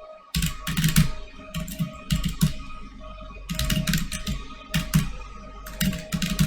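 Computer keyboard typing in several short bursts of rapid keystrokes, with brief pauses between them.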